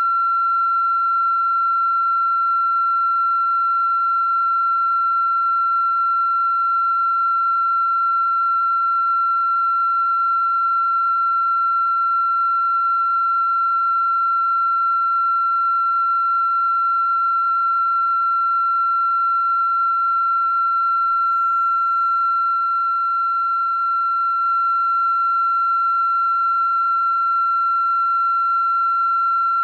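A continuous, unchanging electronic tone at a single high pitch, with fainter overtones above it.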